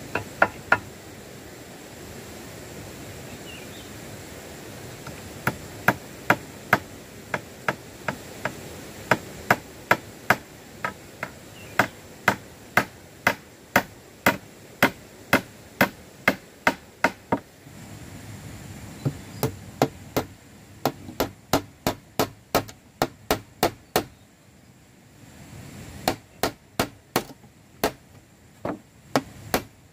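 Hammer striking wooden planks, in runs of quick blows about two a second with short pauses between runs.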